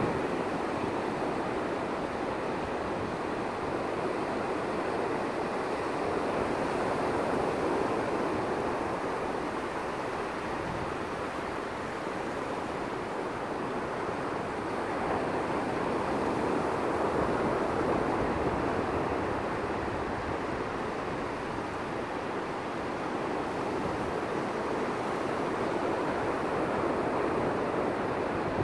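Ocean surf breaking and washing up a sandy beach: a steady rush of water that slowly swells and eases as the waves come in.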